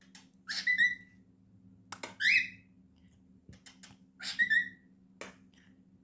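Cockatiel whistling three short calls about two seconds apart, each sliding up into a held note, with a few faint clicks in between.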